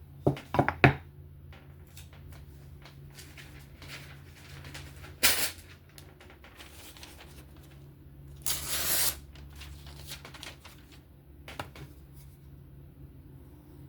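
A few sharp clicks about a second in, then two short swishes: a freshly sharpened folding knife slicing through paper to test its edge.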